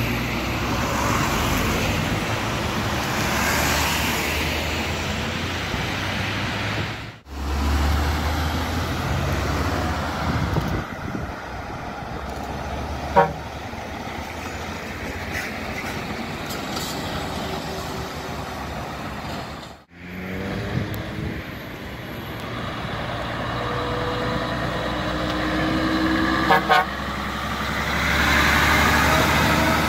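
Articulated trucks, including Mercedes-Benz Actros tractor units, driving past one after another with their diesel engines running. There is a short horn toot about 13 seconds in and a quick double toot near 27 seconds.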